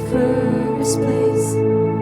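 Worship band music: a passage of sustained chords without sung words, with two brief hissing accents near the middle.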